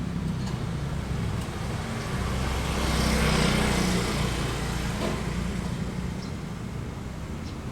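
A motor vehicle's engine running with a low hum, growing louder about three seconds in and then fading, like a vehicle passing.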